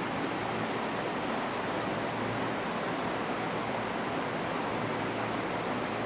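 Steady, even rushing hiss with a faint low hum underneath, unchanging throughout.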